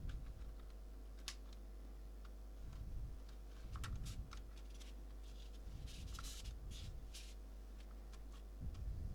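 Plastic pry card worked around the edge of a tablet's back cover: faint scattered clicks and light scraping of plastic on plastic as the cover is unhooked, with a denser run of scraping a little past halfway.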